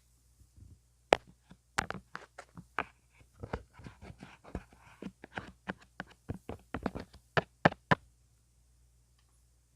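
An ear pick scratching, scraping and tapping on a mini microphone in close-up ear-cleaning ASMR: a dense, irregular run of sharp clicks and crackles that stops about eight seconds in.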